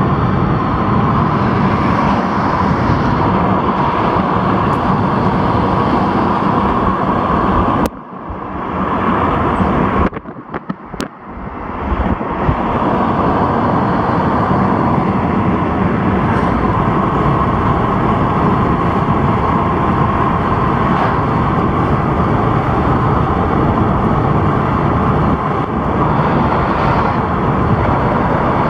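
Steady road and engine noise of a car being driven, heard from inside the cabin. The noise drops off sharply about eight seconds in and comes back loud a few seconds later.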